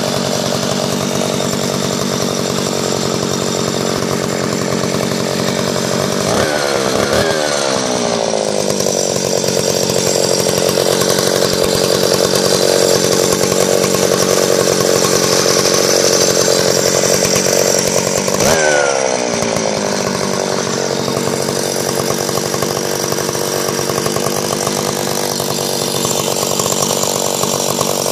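Echo 701s VL two-stroke chainsaw engine running steadily. It is blipped twice in quick succession about six seconds in and once more about two-thirds of the way through, each time rising briefly in pitch before settling back.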